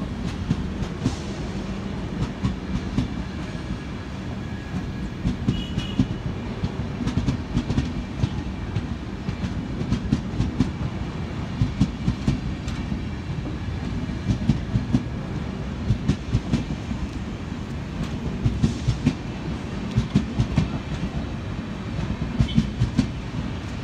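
Indian Railways passenger train coaches passing close by, a steady low rumble with the wheels clattering over the rail joints in groups of clicks every couple of seconds.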